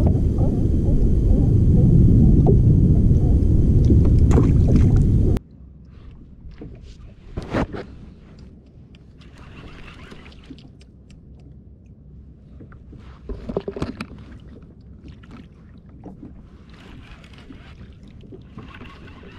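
Wind buffeting the microphone on an open-water kayak for about five seconds, cut off suddenly; then a quieter background of wind and water with scattered knocks and clicks of fishing gear being handled on the kayak, one louder knock about two seconds after the cut and a short cluster near the end.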